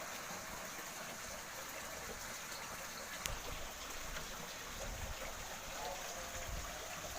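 Steady rushing noise like running water, with no clear birdsong standing out.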